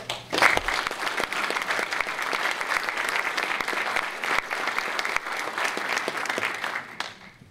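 Audience applauding, many people clapping together; it starts just after the start and dies away near the end.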